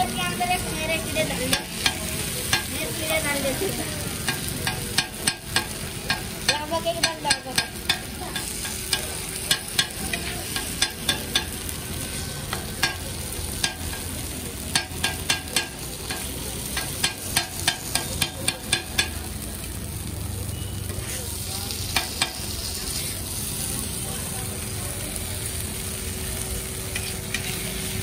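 Metal spatula tapping and scraping on a hot flat griddle in quick clusters of sharp clicks while the potato masala is spread on a dosa, over a steady sizzle of the dosa frying. The tapping stops about two-thirds of the way through, leaving the sizzle.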